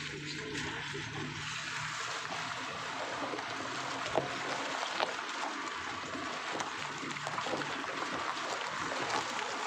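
Steady rushing of a shallow river flowing over stones, with a few faint clicks. A low steady hum fades out within the first two seconds.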